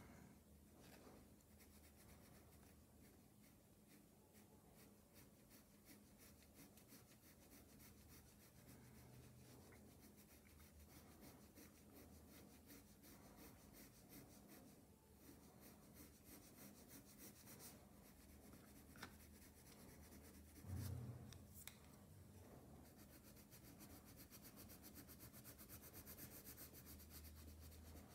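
Faint scratching of a colored pencil stroked back and forth across paper, the strokes quicker and more regular near the end. A soft low thump about three-quarters of the way through.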